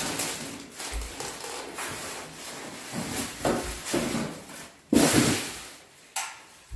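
Steel cabinet of a TACKLIFE propane fire pit table being lifted and turned over on cardboard packing: scraping and rubbing, a few knocks, and one louder bump about five seconds in.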